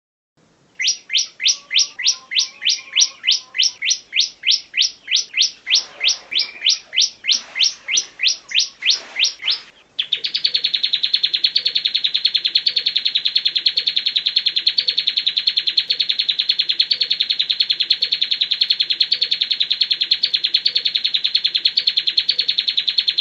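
Recorded songbird tutor song. A series of quick, high notes, each sweeping downward, comes about three a second. About ten seconds in, it switches abruptly to a long, very fast, even trill.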